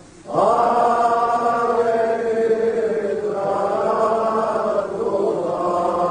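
Men's voices chanting a loud vocal Sufi dhikr together in long, drawn-out notes. The chant breaks off for a moment at the start and comes straight back in.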